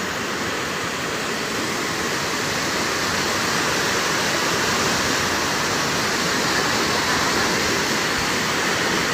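Fast-flowing floodwater rushing past: a steady, unbroken rush of water.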